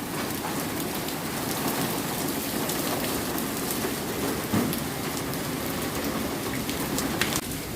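Heavy rain pouring down steadily, with a couple of sharper knocks, one about halfway through and one near the end.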